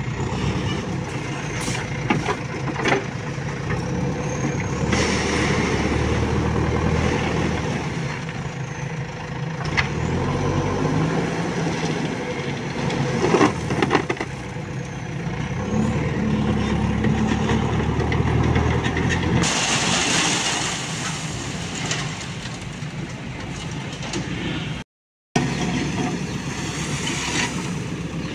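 JCB 3DX backhoe loader's diesel engine running and revving up and down under hydraulic load as the bucket scoops and lifts gravel, with scattered knocks and clatter from the gravel and bucket.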